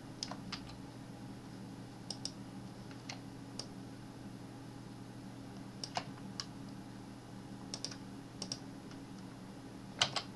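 Scattered clicks of computer keyboard keys and mouse buttons, single and in quick pairs, about a dozen in all, over a low steady hum.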